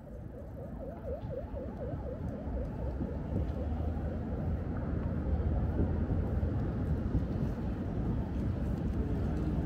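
Open-air ambience fading in: a steady low rumble and hiss. Over it, a distant siren warbles up and down several times a second for the first two seconds or so, then fades under the ambience.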